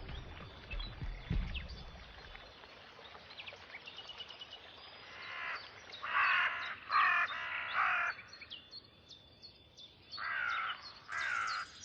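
Harsh, cawing bird calls, a quick run of them about five seconds in and another run near the end, with smaller birds chirping faintly behind.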